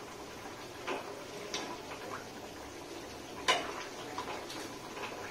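Metal spatula tapping and scraping against a steel kadai as fish curry is stirred: a few light, separate clinks, the loudest about three and a half seconds in.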